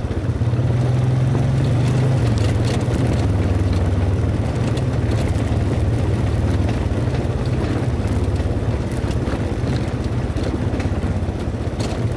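ATV engine running steadily while riding a rough dirt trail, its note dipping slightly about two seconds in, with occasional clicks and knocks over the engine.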